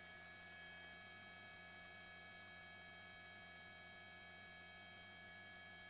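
Near silence: a faint, steady electronic hum.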